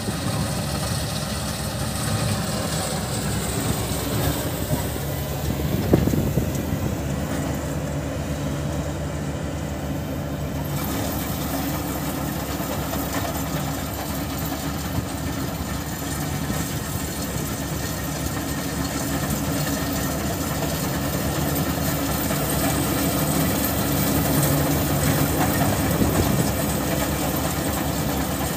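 Steady diesel engine noise from a tractor and a paddy combine harvester at work, with one short knock about six seconds in.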